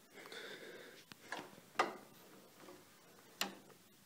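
A few light metallic clicks and knocks from a homemade winch's belt-clutch engaging arm and linkage (a salvaged MTD drag link) being worked back and forth by hand, shifting the idler pulley against the belt.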